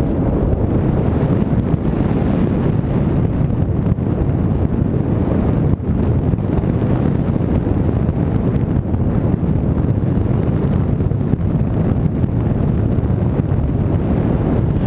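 Steady, loud wind rushing over the microphone of a camera carried on an RC model plane, with no motor tone heard.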